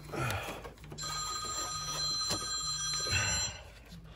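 An electronic ringing or buzzing that pulses on and off about once a second, with steady high tones through the middle, and a few light clicks.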